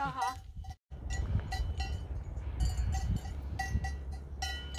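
Bells on grazing Valais Blacknose sheep clinking irregularly, with a short quavering bleat right at the start. A steady low wind rumble on the microphone runs underneath, broken by a brief gap just under a second in.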